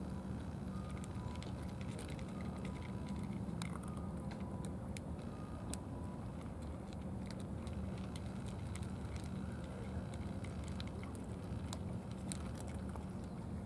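Cats eating wet food from plastic trays: scattered small clicks and smacks of chewing and licking, over a steady low rumble.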